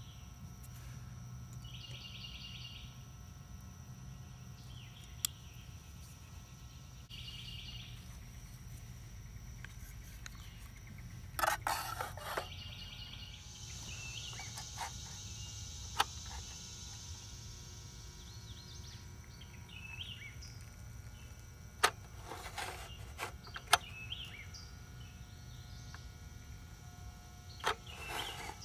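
Quiet outdoor ambience with a few bird chirps, broken by scattered sharp metal clicks and a brief clatter about a third of the way in, as pliers and an aluminium sinker mold are handled and set under a lead-melting pot.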